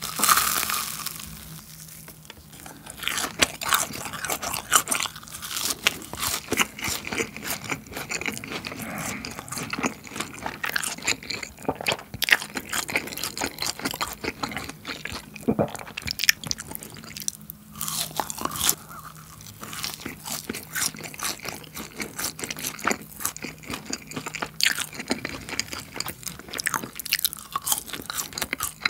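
Close-miked eating: a loud crunchy bite into a fried cheese ball right at the start, then continuous chewing, with many small wet clicks and crackles from the mouth.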